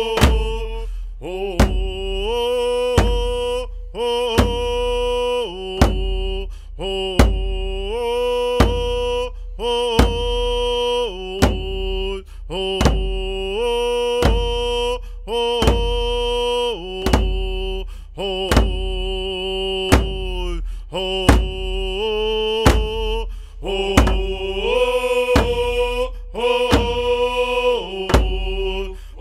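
Music track of chanted singing over a slow, steady drum beat, about one stroke every second and a half, with long held notes that step up and down in pitch.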